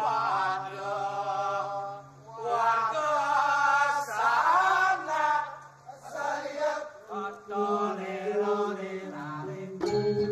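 A group of voices chanting in a Balinese vocal style, in phrases with wavering pitch, over a steady low drone. About two-thirds of the way through, the drone gives way to held low notes that step up and down in pitch.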